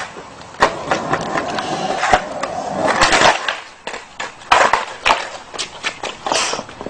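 Skateboard wheels rolling on concrete pavement, broken by about seven sharp clacks of the board hitting the ground, roughly a second apart.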